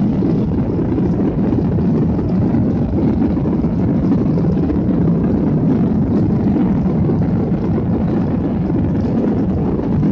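Steady, loud drone of an airliner's jet engines and rushing air heard from inside the passenger cabin during takeoff.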